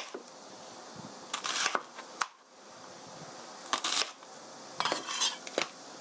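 A chef's knife cutting through a raw onion onto a plastic cutting board: several short crisp crunching cuts, each ending in a light knock of the blade on the board.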